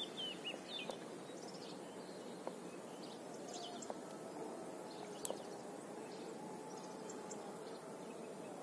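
Outdoor ambience: a steady background hush, with a bird chirping in short high notes, mostly in the first second and a few more faintly later. A few faint clicks are scattered through it.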